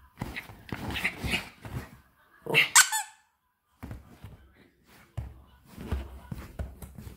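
A Yorkshire Terrier playing rough with a stuffed monkey toy on a leather couch: short bursts of scuffling and growling, with one loud, sharp squeak falling in pitch about two and a half seconds in.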